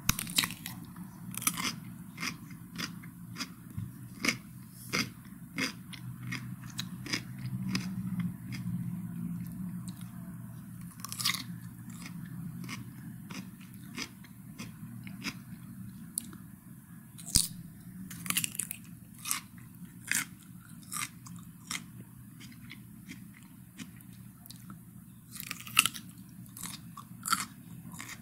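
Cucumber being bitten and chewed: irregular crisp, wet crunches about once or twice a second, over a low steady hum.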